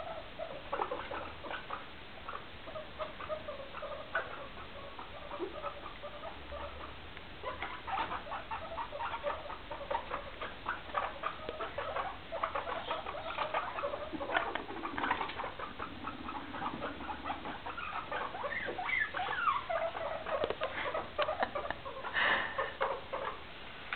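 Guinea pigs popcorning and scampering on a stone floor: quick, irregular pattering of small feet and claws, busier after the first several seconds, with a few short squeaks.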